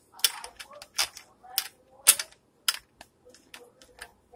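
Irregular sharp clicks and light metallic clatters of tools and pipe fittings being handled and fitted together, a dozen or so at uneven spacing.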